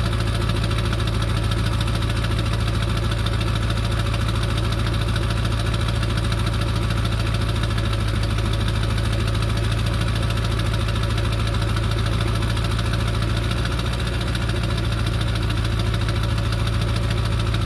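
Ford 7.3 Powerstroke V8 turbo-diesel idling steadily with an even diesel clatter, still cold after sitting three weeks unstarted.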